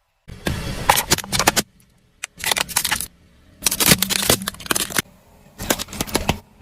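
Objects cracking and crunching as they are crushed under a car's tyres, in four short bursts of rapid snaps, each cut off abruptly.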